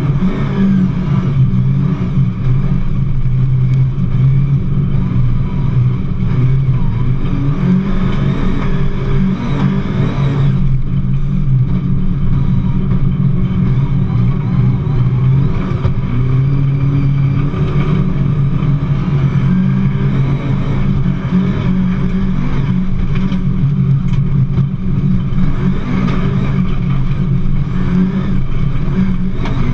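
Rally car engine driven hard, heard from inside the stripped, roll-caged cabin, its revs rising and falling with throttle and gear changes; a short easing of the sound about ten seconds in.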